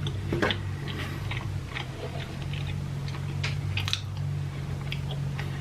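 A person chewing a mouthful of cheese close to the microphone, with scattered short wet mouth clicks, over a steady low hum.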